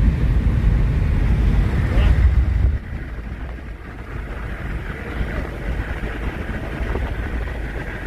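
Road and wind noise from a car driving along a highway: a heavy low rumble with hiss. Just under three seconds in it drops abruptly to a quieter, steady hiss.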